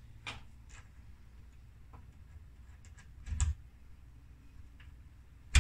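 Metal doorknob hardware being handled after its two screws are taken out: scattered small clicks, a louder knock about three seconds in, and a sharp clack at the end.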